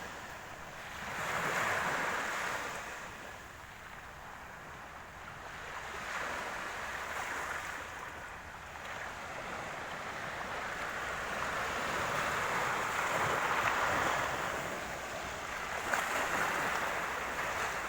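Black Sea surf breaking and washing on the beach, the rush of the waves swelling and ebbing every few seconds, with a light sharp splash or pebble clatter about sixteen seconds in.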